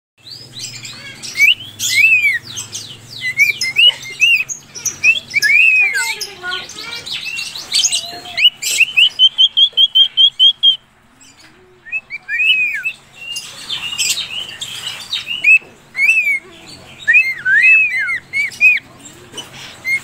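Cockatiels chirping: a steady stream of short rising-and-falling chirps mixed with raspier calls, with a quick run of repeated chirps about halfway through, then a brief pause before the chirping resumes.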